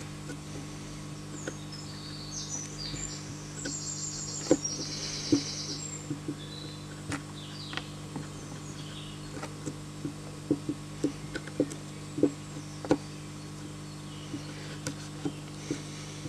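Fixed-blade bushcraft knife carving a notch into a green wooden stick: short, irregular cuts and scrapes of the blade in the wood, some sharper than others, over a steady low hum. A brief high trill sounds a few seconds in.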